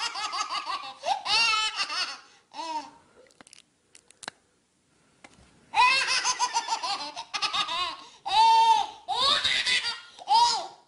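A baby laughing in high-pitched, rapidly pulsed giggles, in two bouts separated by a near-silent gap of about two seconds.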